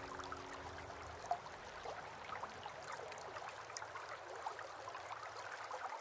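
Small waterfall in a tabletop aquaterrarium trickling down rocks into the water below, with many faint droplet plinks and splashes.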